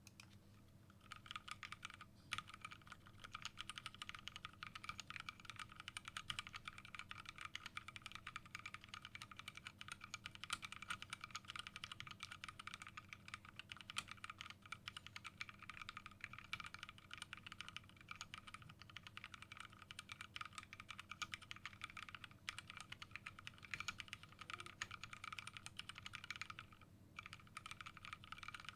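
Continuous fast typing on a Skyloong GK64S hot-swap mechanical keyboard: lubed Gateron Yellow linear switches on an FR4 plate, under doubleshot PBT keycaps. Dense, rapid keystrokes start about a second in, pause briefly a few times, and stop shortly before the end.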